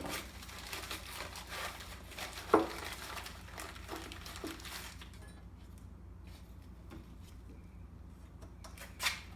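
Hands working at a lapidary machine's expando drum: scattered light clicks and rustling, with one sharper click about two and a half seconds in, then mostly quiet apart from a single click near the end.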